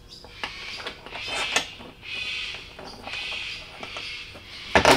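A clear plastic rotary tumbler barrel being closed up, its lid fitted over a rubber gasket and its wing nuts screwed down by hand: a run of handling sounds, with a sharp knock near the end.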